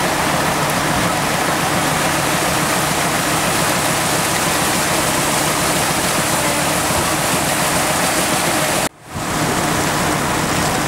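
Steady rushing of water and air from a vehicle driving through floodwater, with a low engine hum beneath. It cuts out for a moment about nine seconds in.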